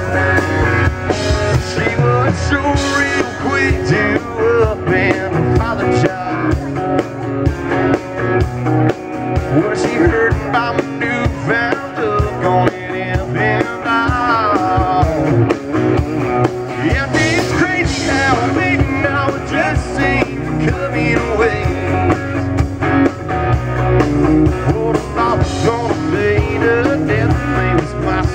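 Live country-rock band playing through a stage PA: guitars, bass and drums keep up a steady beat, with a lead line or voice weaving over them.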